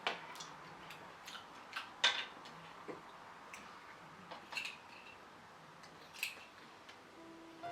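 About a dozen light clicks and clinks of hard objects at irregular intervals, the loudest about two seconds in.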